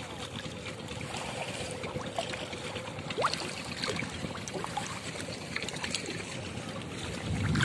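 Shallow muddy water sloshing and splashing as hands grope through it, with small scattered drips and splashes.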